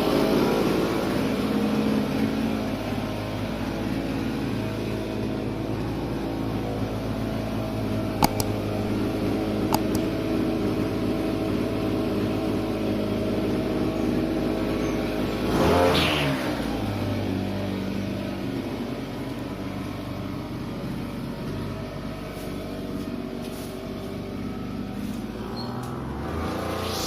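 Brush cutter with a nylon string head running steadily as it cuts grass on sandy ground, with two sharp ticks about eight and ten seconds in and a brief louder swell about sixteen seconds in.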